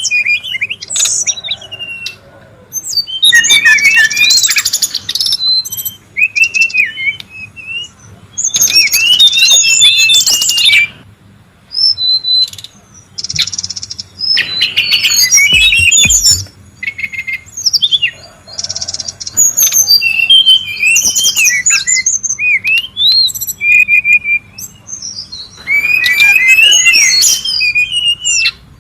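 Brown-chested jungle flycatcher calling: four dense, chattering bursts of a few seconds each, with short whistled phrases between them.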